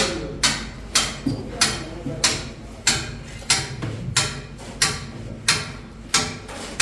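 Plastering trowel work: a sharp slap or knock repeated evenly, about one and a half times a second, a dozen or so in all.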